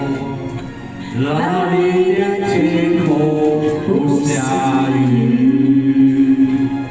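A man and a woman singing a duet into microphones with backing music. They hold two long notes, the second beginning about four seconds in.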